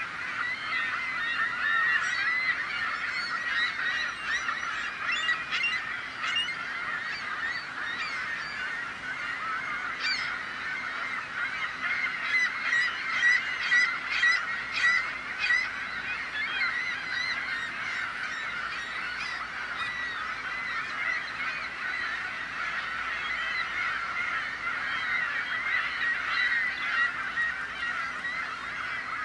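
A flock of gulls calling all at once: a dense, unbroken din of overlapping calls, busiest about halfway through.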